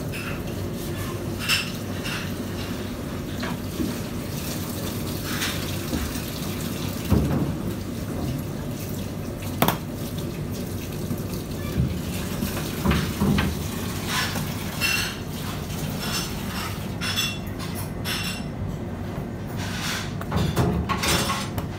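Kitchen work sounds: a steady rush of running water, with scattered clinks and knocks of plates and utensils.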